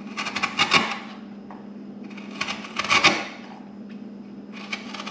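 Steel bench chisel paring wood out of a notch in a 2x4 by hand, widening a notch that fits too tight. Three pushes about two seconds apart, each a second-long run of crackling and scraping as chips come away.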